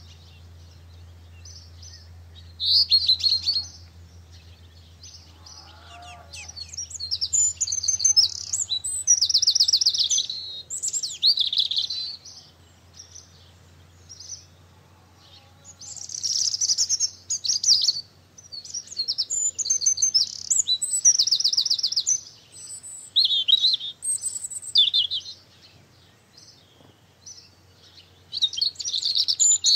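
Songbirds singing: high, twittering song phrases a second or two long come every few seconds, sometimes overlapping, with quieter gaps between them. A faint low hum underneath fades out about halfway.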